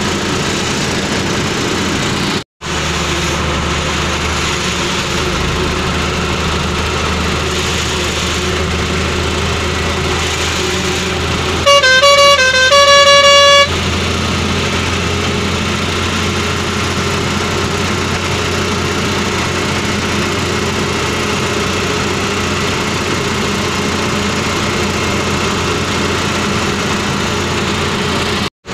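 A truck's engine and road noise heard from inside the cab while driving, with a horn blast of about two seconds roughly halfway through that switches back and forth between two notes before holding one.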